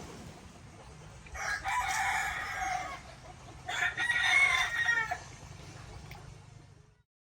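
Rooster crowing twice, two long calls each about a second and a half, over a steady low background hum.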